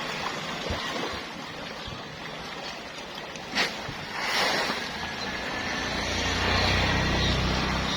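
Rushing, splashing water noise with a sharp knock about three and a half seconds in, and a low motor hum coming up near the end.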